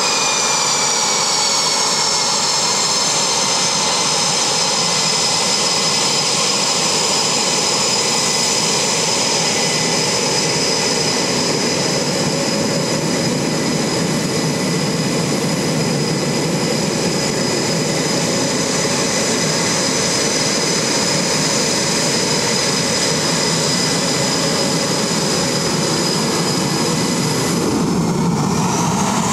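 EA-18G Growler's twin General Electric F414 turbofan engines running at low taxi power: a loud, steady jet whine made of several high tones over a rushing roar, dipping slightly in pitch at the start. Near the end the whine drops away for a moment and comes back rising.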